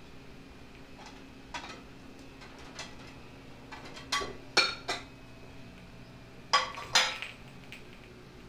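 Dishes clinking as a plate is taken out and handled: a few light clinks, then two louder groups of sharp clinks, about four seconds in and again about a second and a half later.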